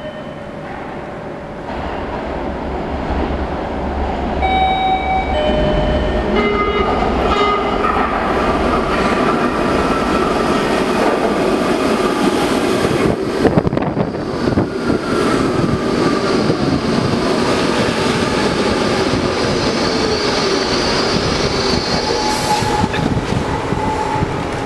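Baltimore Metro Subway train of Budd Universal Transit Vehicle cars arriving at an underground platform. The rumble of its approach grows louder over the first few seconds, then the wheels run over the rail with a few sharp clicks about halfway through. A whine slides down in pitch as the train slows to a stop.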